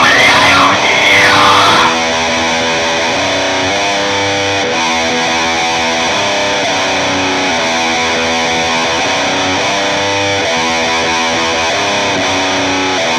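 Music led by distorted electric guitar. A louder, wavering lead line plays for about the first two seconds, then steady chords change about once a second.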